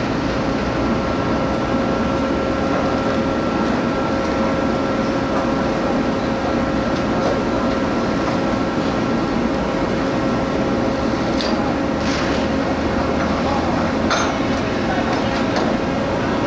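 Heavy machinery running steadily: a constant drone with a steady hum in it, and a few faint clicks about eleven and fourteen seconds in.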